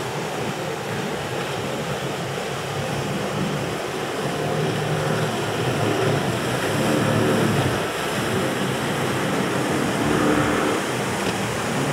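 Twin outboard motors of a center-console boat running at speed through choppy water, over a steady rush of spray and surf. The engine note grows louder from about four seconds in as the boat passes close.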